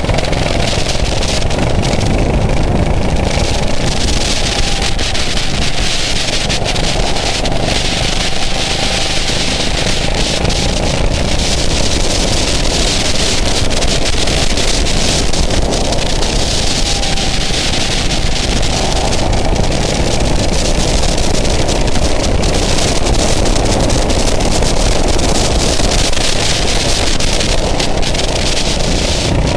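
Go-kart engine running at speed on track, its note rising and falling a little through the corners, under heavy wind noise on the kart-mounted microphone.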